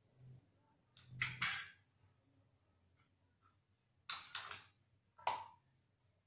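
Short clatters and scrapes of kitchen utensils or dishes, in three groups: about a second in, around four seconds in, and once more just after five seconds.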